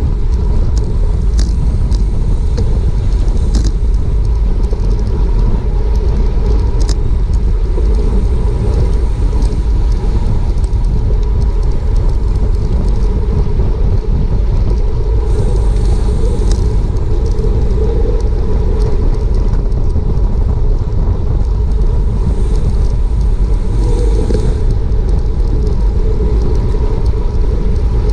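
Wind buffeting a bicycle racer's action-camera microphone at race speed, a loud steady rumble with tyre and road noise beneath, and a few scattered ticks in the first several seconds.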